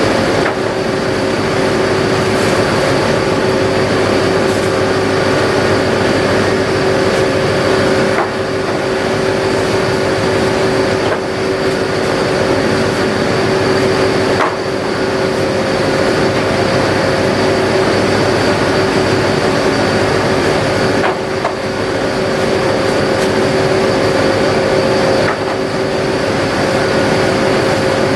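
Trawler's engine and deck machinery running with a loud, steady hum, and a few knocks over it.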